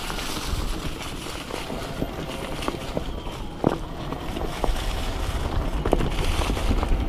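Fat-tyre e-bike riding over a snowy trail: steady wind rumble on the microphone with scattered knocks and rattles as the bike goes over bumps.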